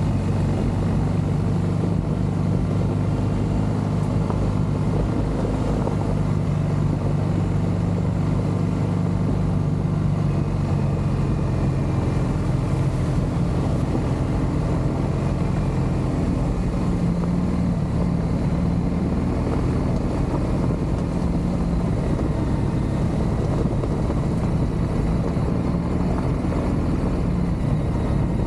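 A vehicle engine running at a steady speed: an even, low drone.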